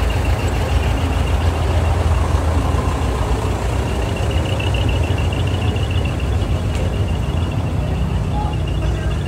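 Heavy truck's diesel engine running with a steady low rumble, with a faint high pulsing tone over it from about four seconds in.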